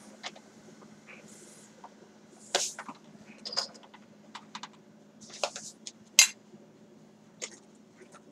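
Kitchen handling sounds as sugar goes into a pot of figs: short rustles of the sugar bag and a scattering of sharp clinks and taps against the pot, the loudest about six seconds in, over a steady low hum.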